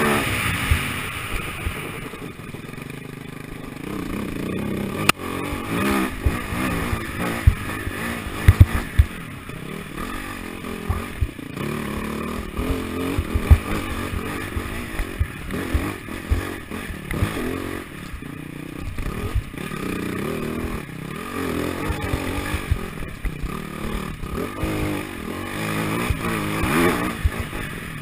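AJP SPR 310 enduro motorcycle's single-cylinder four-stroke engine, revving up and falling back over and over as the throttle is worked at trail speed. Scattered sharp knocks and clatter come from the bike going over rough ground.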